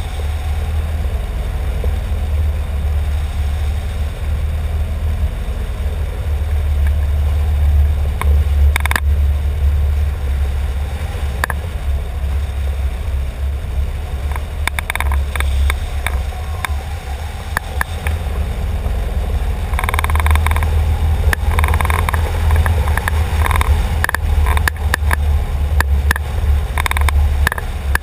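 Wind rushing over the microphone of a camera mounted on a hang glider in flight, a loud steady low rumble. Scattered clicks and short rattles join in, thickening through the second half.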